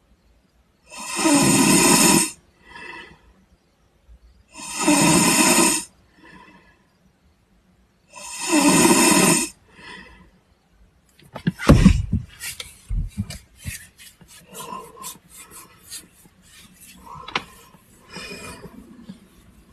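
A person snoring: three long, loud snores about four seconds apart, each followed by a fainter breath out. About halfway through the snoring stops, and scattered rustling, clicks and two low thumps follow, as of someone shifting in bed.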